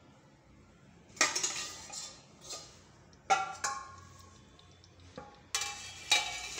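A metal spoon clanking against a steel cooking pot while stirring thick tomato chutney: several sharp metallic knocks, each with a brief ring. The last knock comes as the steel lid is set on the pot.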